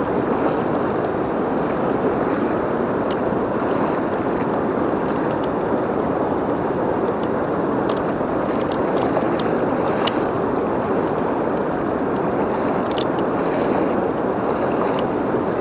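Fast river current rushing over and around rocks, a steady rush of water, with a few faint ticks scattered through it.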